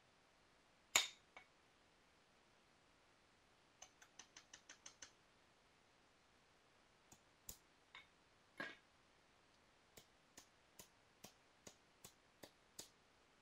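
Flintknapping on a piece of Rainy Buttes stone: one sharp strike about a second in, then a quick run of light clicks, a few louder knocks, and an even series of light taps, between two and three a second, near the end.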